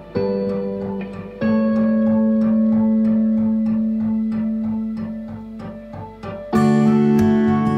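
Background music: plucked guitar playing a steady run of notes over held chords, the chord changing about a second and a half in and again near the end.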